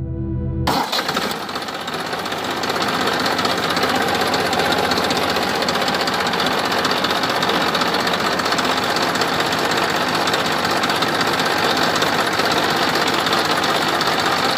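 A steady, fast mechanical engine-like running noise, starting about a second in and holding at an even level throughout.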